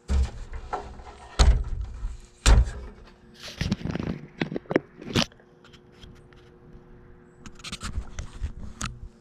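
Three heavy knocks in the first few seconds, then scraping and a run of sharp clicks and taps as parts and tools are handled during fitting work.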